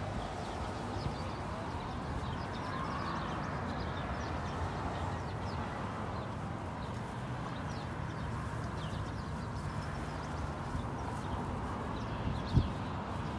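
Steady outdoor background noise with a low hum and faint high chirps scattered throughout, and one sharp thump about twelve and a half seconds in.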